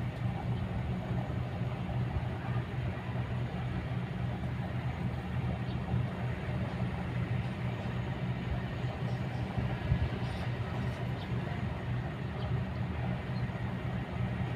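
Kobelco excavator's diesel engine running steadily, with a single short knock about ten seconds in.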